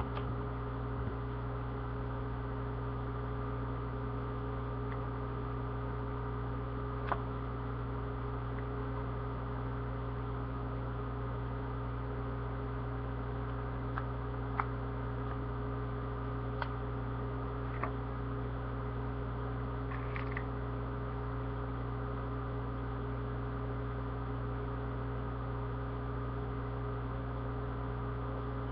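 Steady electrical hum, like mains hum, with a handful of short, faint clicks scattered through it, about six in all, most of them in the middle stretch.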